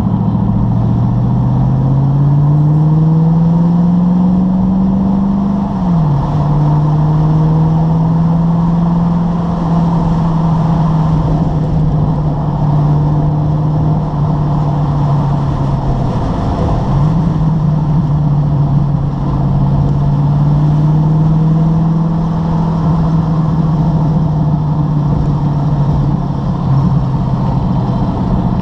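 TVR sports car engine heard from inside the car, pulling hard with its note rising for about six seconds, dropping sharply at an upshift, then cruising at a steady note with a brief dip about seventeen seconds in.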